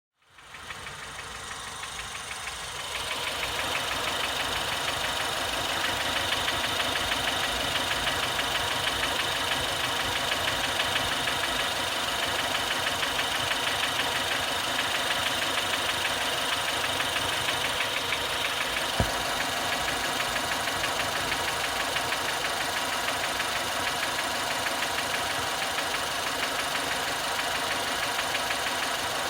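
A 2016 Ford Fiesta ST's 1.6-litre turbocharged four-cylinder idling with a steady, rhythmic knocking or pinging that the owner flags as an engine knock at idle. One sharp click stands out about two-thirds of the way through.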